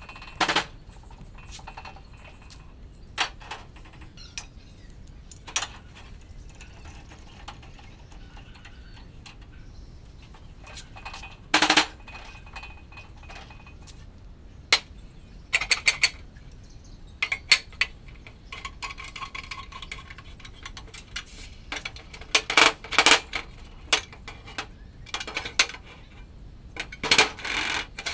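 Steel clamp parts and square steel tube knocking and clinking together as the homemade pipe clamp is handled and set: irregular sharp metal clicks, with a few louder clanks that ring briefly spread through.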